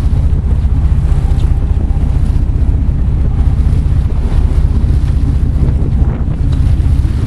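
Strong wind buffeting the microphone, a steady low rumble, over the wash of the sea around a boat.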